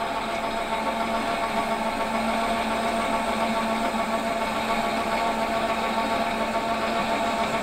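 Metal lathe running steadily while a round-nose tool takes a continuous cut on the spinning crankcase blank, peeling off long stringy swarf. A steady machine hum with several held tones, unchanging throughout.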